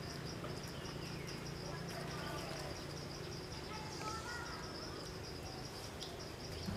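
Insects trilling in a steady, fast-pulsing high tone, with a few faint short chirps over a low background hum.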